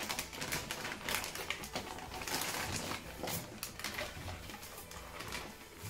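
Clear plastic parts bag crinkling and rustling in a run of quick crackles as it is handled and opened.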